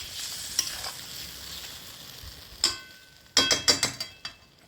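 Fish curry bubbling in a kadai while a spatula stirs it with a few light clinks, then a metal lid clatters onto the pan with several ringing clanks about three and a half seconds in.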